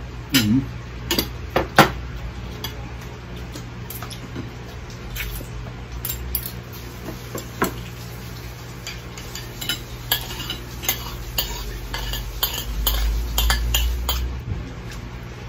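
Metal spoon and fork clinking and scraping on plates during a meal: a scatter of sharp clicks, a few louder knocks in the first two seconds, and a quicker run of clinks near the end.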